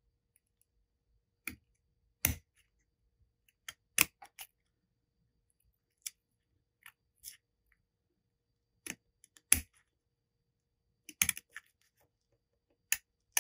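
Small scissors snipping through a piece of snakeskin backed with masking tape, cutting along a marked line: about a dozen short, irregular snips with quiet gaps between.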